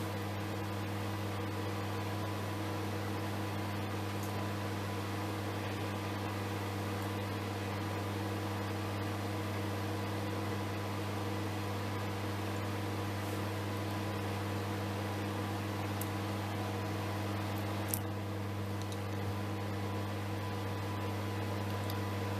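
Microwave oven running: a steady electrical hum over the even whoosh of its fan, with one brief click about three-quarters of the way through.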